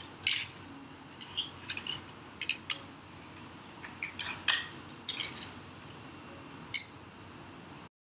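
Scattered light clicks, taps and rustles of a small 3D-printed plastic enclosure and its sensor boards being handled and fitted together by hand. The sound cuts out abruptly just before the end.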